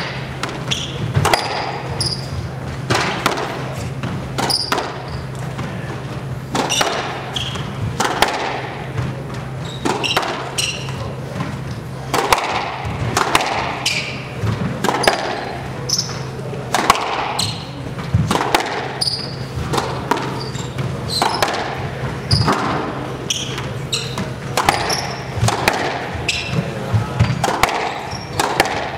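Squash rally: a rubber squash ball struck by racquets and smacking the walls and floor of the court, many sharp hits a second or so apart, with short high squeaks of players' shoes on the hardwood floor and a steady low hum underneath.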